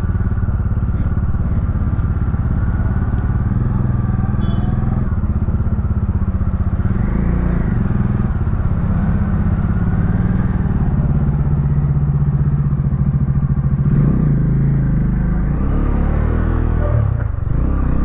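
Bajaj Dominar 250's single-cylinder engine running while the bike is ridden. The engine note shifts about three-quarters of the way through, then dips and rises in pitch near the end.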